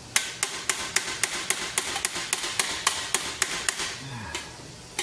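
Rapid, even hammer blows on the steel plates of a medieval great helm, about four a second with a slight metallic ring, stopping near the end and followed by one more strike.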